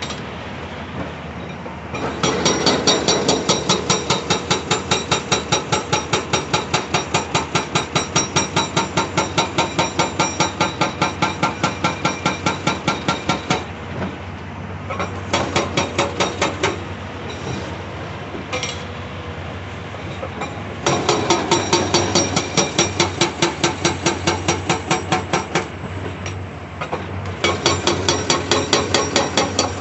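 Hydraulic breaker on a CAT 349E excavator hammering rock in long runs of rapid blows, several a second, each run with a metallic ring. Between runs the excavator's engine runs steadily.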